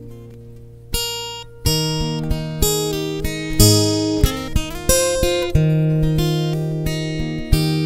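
Background music: acoustic guitar playing plucked and strummed notes that ring and fade. After a short lull a new phrase begins about a second in.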